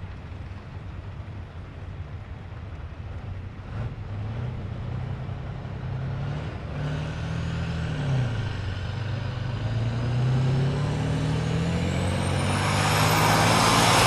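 Kirovets K-700-series tractor's diesel engine running and being revved, growing steadily louder as it is opened up under load to pull the sled. A high whine rises in pitch near the end.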